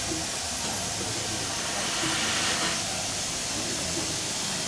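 Steam road roller hissing steam. The hiss is steady, swells louder about two seconds in, and cuts off sharply a moment later.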